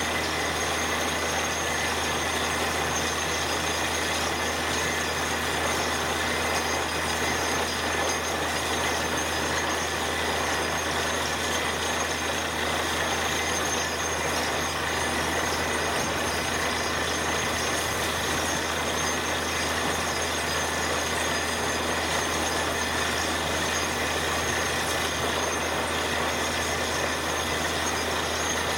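Truck-mounted borewell drilling rig and its air compressor running steadily while drilling, a loud unbroken mechanical noise with a low hum and a steady high-pitched whine.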